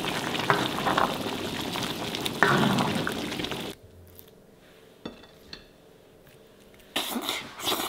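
Capcay in a wok sizzling and bubbling for about three and a half seconds, then cutting to a much quieter stretch with a few light clicks from a stone mortar. A louder noisy burst comes near the end.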